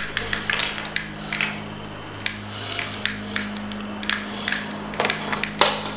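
Mini RC car's tiny electric motor whirring in short bursts of a second or less as it is driven in spurts, with a steady low hum underneath and a few sharp clicks about five seconds in.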